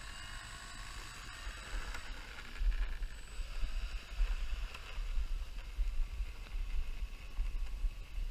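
Electric brushless motor and propeller of a foam RC Cessna 170 model running with a steady whine as the plane taxis away, its pitch drifting slightly. Wind buffets the microphone in gusts from a couple of seconds in.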